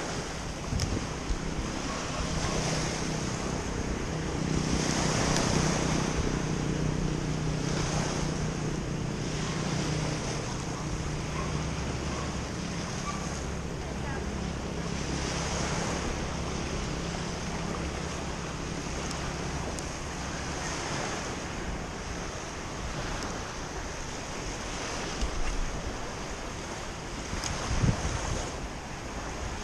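Small waves breaking and washing up a pebble beach, in slow repeated surges, with wind buffeting the microphone.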